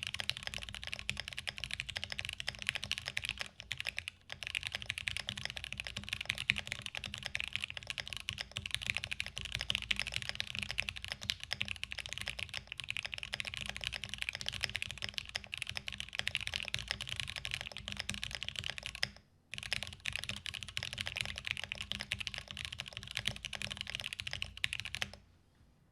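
Fast, continuous typing on a custom Alice-layout mechanical keyboard with Gateron Oil King linear switches, a UHMWPE plate and ePBT keycaps: a dense stream of key clacks. The typing pauses briefly about four seconds in and again just past the middle, then stops shortly before the end.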